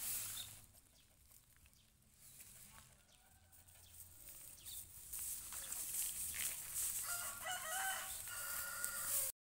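A rooster crowing faintly, one drawn-out call starting about seven seconds in and lasting around two seconds.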